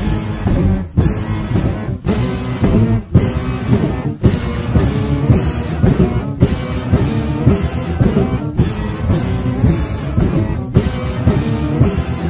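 Instrumental passage of a lo-fi rock song with guitar and drum kit, no vocals. The sound cuts out briefly about once a second.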